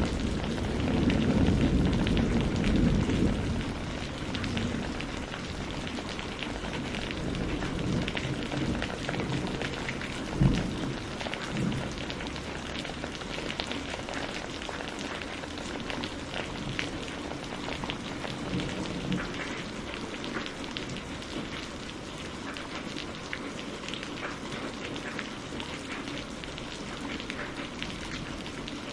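Thunderstorm: steady heavy rain with many small drop ticks, under a low rumble of thunder that fades out over the first few seconds. One sudden low thump stands out about ten seconds in.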